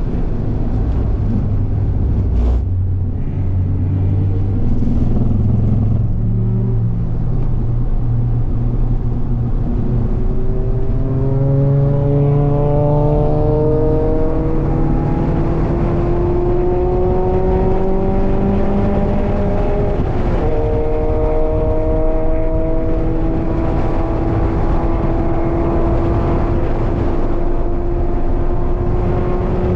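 Mazda MX-5's four-cylinder engine on track, heard from inside the cabin: lower revs with road noise at first, then the revs climb steadily under acceleration from about a third of the way in. One upshift about two-thirds of the way through drops the pitch, and the revs climb again.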